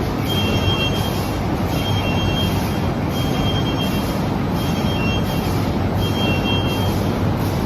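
Plastic bag-making machine for diaper bags with handle sealing, running steadily, with a short high tone repeating about every one and a half seconds as it cycles.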